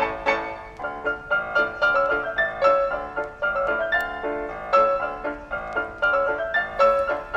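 Background music: a quick, lively melody of short struck notes on a piano-like keyboard.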